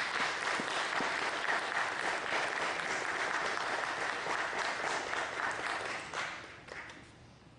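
Audience applauding, building quickly, holding steady, then fading away about seven seconds in.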